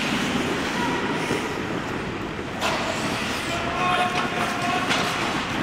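Ice hockey play on a rink: a steady noise of skate blades on the ice, with a sharp knock about two and a half seconds in and a lighter one near the end.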